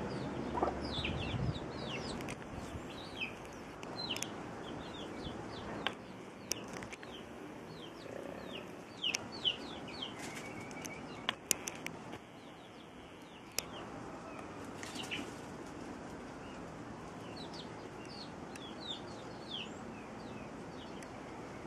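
A brood of chicks peeping over and over in short, falling high notes, with a hen clucking now and then and scattered sharp clicks.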